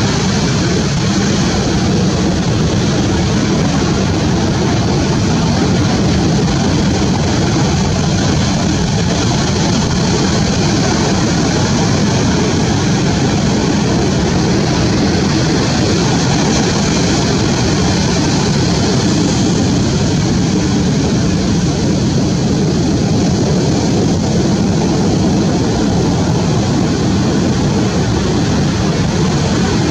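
Steady roar of ocean surf breaking on the beach, an even rushing noise with no distinct events.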